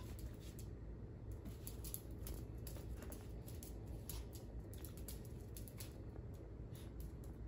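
Two small dogs' claws clicking and pattering on a hardwood floor as they play and scramble: a maltipoo and a miniature labradoodle puppy. The clicks are irregular and come over a steady low hum.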